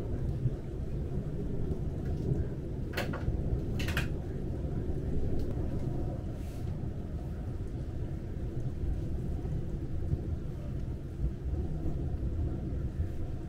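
Low, steady rumble of a thunderstorm heard through a window, with a couple of sharp clicks about three and four seconds in.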